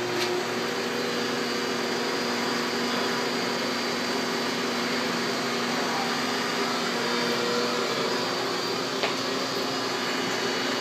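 35 mm film projector and platter system running, a steady mechanical whir and hum with a few constant tones. One faint click near the end.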